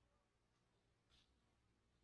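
Near silence: room tone, with one faint, brief rustle just after a second in.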